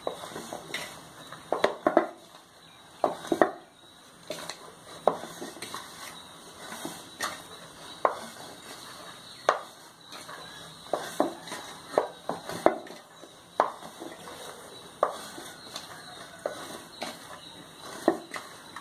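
Stiff maida-and-rava dough being kneaded by hand in a stainless steel bowl: irregular knocks and slaps of the dough and hand against the metal bowl, about one or two a second. The dough is being worked to a firm chapati-dough consistency.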